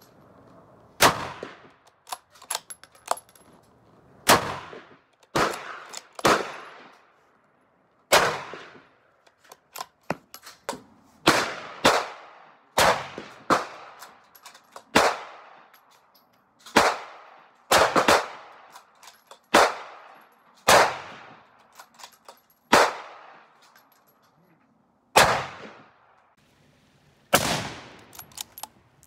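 A run of about fifteen rifle shots from a Marlin X7 bolt-action in .308, each a sharp crack with a short echoing tail, one to three seconds apart, with lighter clicks between some shots as the bolt is worked.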